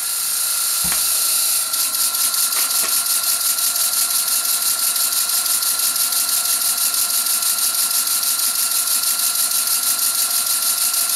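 Stuart S50 model steam engine running on compressed air: a hiss of air and a single knock as it starts, then from about two seconds in a fast, even exhaust chuff as the engine runs steadily, over a thin steady whine.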